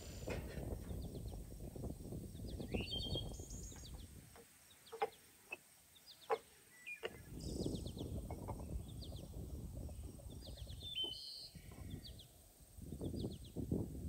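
Small birds chirping repeatedly over a low outdoor rumble, with a few light knocks about five to six seconds in.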